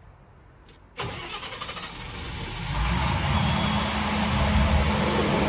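FG Wilson XD250P1 generator's Perkins diesel engine starting: the starter kicks in about a second in, the engine catches within about two seconds and settles into a steady run.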